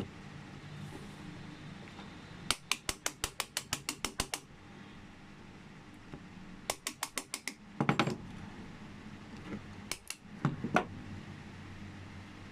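Quick runs of sharp metal clicks and taps on a Honda City lock as its retaining pin is worked out to free the barrel: about a dozen rapid clicks, then a shorter run, a brief scrape, and a few knocks near the end.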